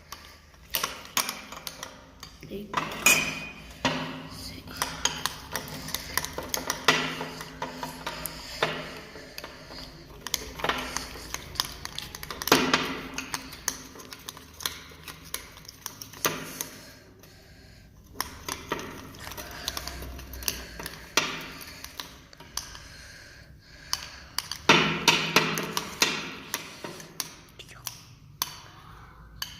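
Spoon clinking and scraping against a bowl in quick, irregular strokes, stirring glue, water, detergent and ink together into slime.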